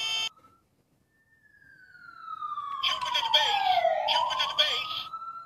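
Fire-engine siren: after a sudden cut-off and about a second of silence, a wail slides slowly down in pitch for a couple of seconds, then rises again. A fast-pulsing electronic two-tone sound joins it for about two seconds in the middle.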